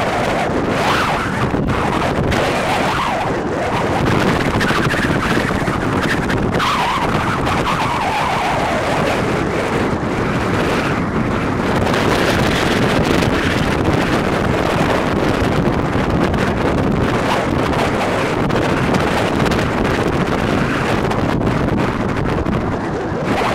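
Steady, loud wind noise buffeting the microphone, with a few faint rising and falling tones under it.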